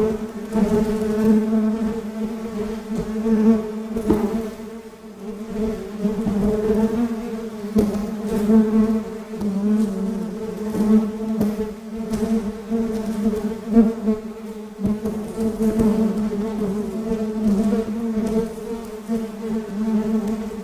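Honey bee swarm buzzing: a dense, steady hum that wavers in strength, with a few faint knocks.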